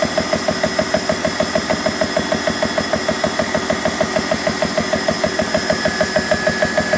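BSA high-pressure air compressor running, pumping with an even, rapid beat of about six strokes a second while filling an air gun.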